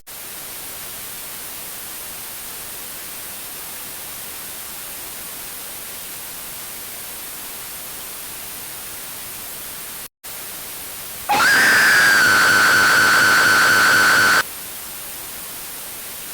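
Steady static hiss. It drops out for a moment about ten seconds in. About a second later a loud, high-pitched held sound breaks in over it, rising at first and then steady for about three seconds, before the hiss carries on alone.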